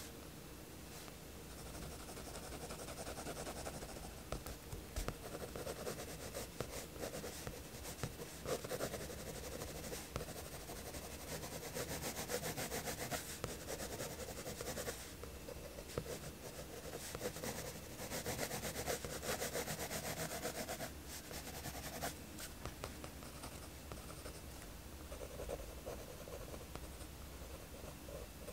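Mechanical pencil scratching on sketchbook paper in runs of quick back-and-forth hatching strokes, with short pauses between runs. The strokes are densest and loudest through the middle of the stretch.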